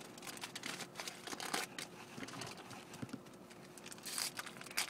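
Foil wrapper of a Topps Chrome football card pack being torn open and crinkled in the hands: a run of crackling rustles, louder about a second and a half in and again about four seconds in.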